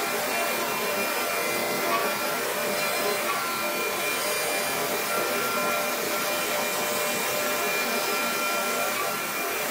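Komo VR510 CNC router's 22 HP spindle routing wood parts on its vacuum table: a steady rushing machine noise with a few thin high tones held throughout.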